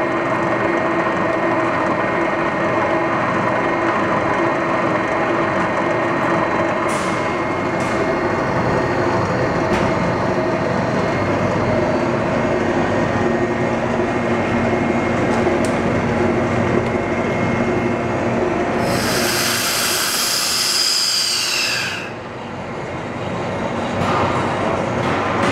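Homogenizing emulsification mixer running: a steady mechanical hum and whine from its homogenizer and stirrer, with several steady tones. Near the end a loud hiss lasts about three seconds, its pitch falling.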